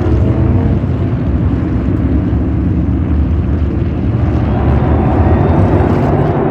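NASCAR Cup Series stock cars' V8 engines running at racing speed, a loud, steady drone with no single pass standing out.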